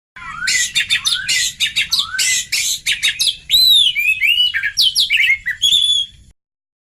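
Oriental magpie-robin song played as a tutor and lure recording for young birds: harsh rasping chatter for the first three seconds, then a run of clear, arched whistles. It starts abruptly and cuts off suddenly about six seconds in.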